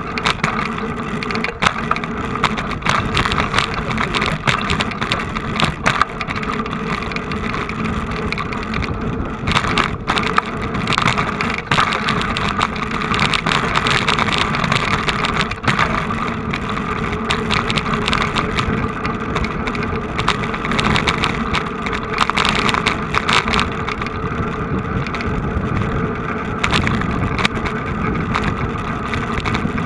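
Vehicle engines running steadily, with a low hum under a noisy wash and frequent short knocks or bumps on the microphone.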